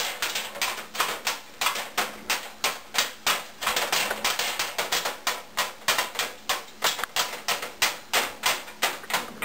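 Knife chopping cooked chicken on a cutting board: quick, even strikes of the blade, about three or four a second.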